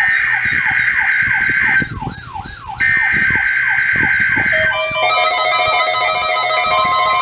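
NOAA Weather Radio Required Weekly Test: two bursts of SAME digital header data, a harsh two-tone buzz, about a second apart, with a repeating falling-pitch electronic siren sweeping about three times a second. About five seconds in, both give way to an electronic tune of held, stepping tones.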